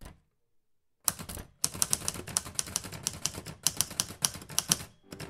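Manual typewriter keys clacking in quick runs of keystrokes, starting about a second in, with short breaks between runs.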